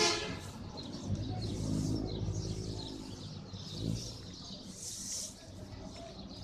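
A dense flock of roosting sparrows chirping together in a continuous chatter. A horn blast cuts off right at the start, and a vehicle engine rumbles low underneath for a few seconds.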